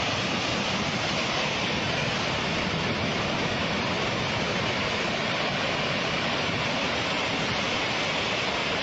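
Landslide: rock and earth pouring down a hillside, a steady rushing noise that never lets up.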